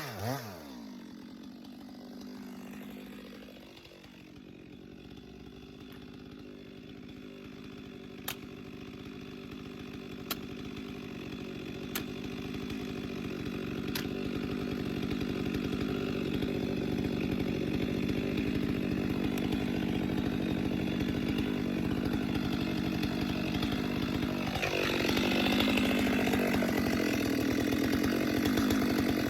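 Stihl MS 462 two-stroke chainsaw cutting through a big log round under load, its engine held at a steady pitch while the cut gets louder. A few sharp ticks sound partway through, and near the end the saw revs up higher.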